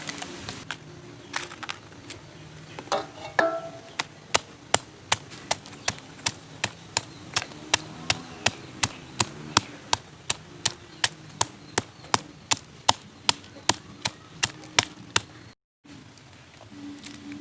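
Steady rhythmic knocking from food preparation, about three sharp strikes a second, which stops abruptly shortly before the end.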